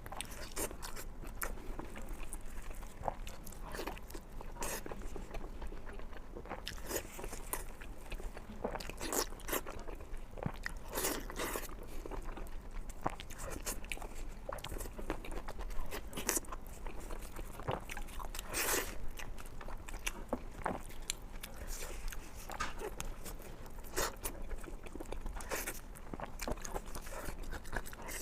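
Close-miked eating: crunchy bites and chewing, with irregular sharp crackles at an uneven pace.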